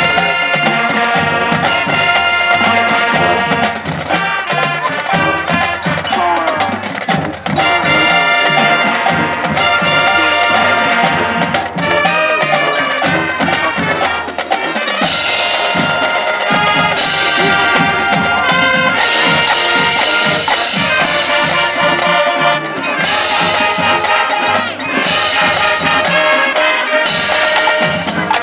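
Marching band playing live: brass with marching drums and percussion. In the second half, bright crashes come roughly every two seconds.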